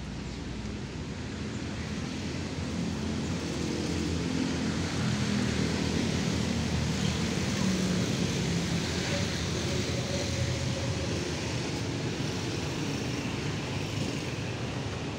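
Road traffic: a steady hum of passing vehicles, with an engine rumble that swells louder through the middle and eases off again.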